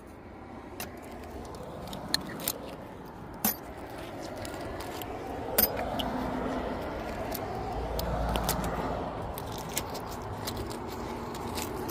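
A road vehicle approaching and passing: road noise that slowly swells to a low rumble about eight seconds in, then eases off. A few sharp clicks sound over the first six seconds.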